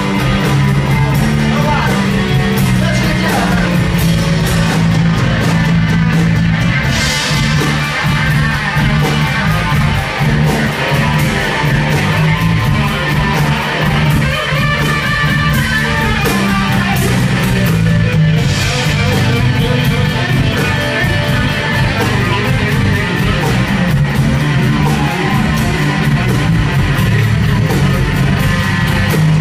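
Live band playing loudly: electric guitars, bass and a drum kit with a steady beat, and a voice singing over it.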